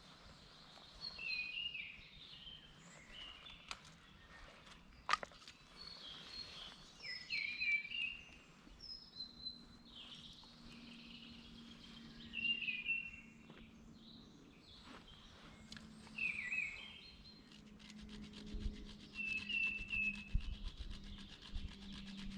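Songbirds singing: repeated short, high chirping phrases, with a sharp click about five seconds in.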